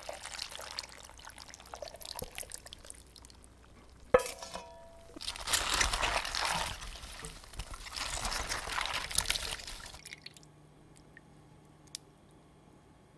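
Thick blended red chili liquid pouring from a pot onto cut cucumber and cabbage in a stainless steel bowl, then a sharp metal clank with a short ring about four seconds in. Gloved hands then toss and squish the wet, seasoned vegetables against the bowl for several seconds, and it goes much quieter near the end, with one faint click.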